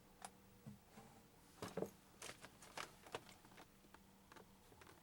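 Faint, scattered light clicks and rustles of handling and moving about in a small cabin, the loudest cluster a little under two seconds in.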